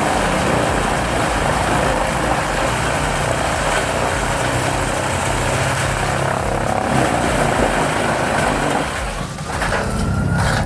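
Large engine-driven wood chipper running under load, a steady engine drone beneath the dense grinding noise of wood being chipped. A faint rising whine comes in near the end.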